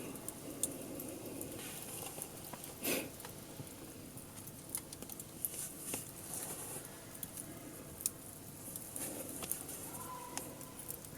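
Firewood burning in a campfire pit: irregular crackling and small pops over a steady hiss, with one louder pop about three seconds in.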